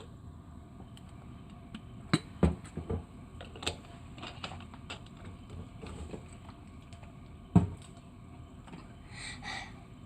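Steady low hum of a ferry's engines heard inside a cabin, with a few sharp knocks and clicks over it, the loudest about three quarters of the way through.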